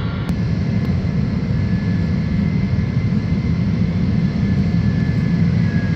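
KC-10 Extender tanker's three turbofan jet engines heard from the runway side as the aircraft rolls along the runway: a steady deep rumble with a faint high turbine whine.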